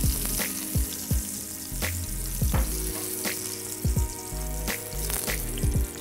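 Tuna steaks sizzling in a hot oiled grill pan, a steady frying hiss, with a few light knocks as a spatula lifts the seared steaks out.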